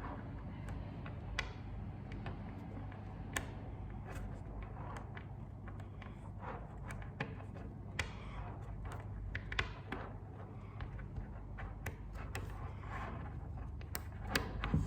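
Small magnetic balls clicking against each other as they are handled and twisted into a shape: a scattering of sharp, irregular clicks over a faint steady hum.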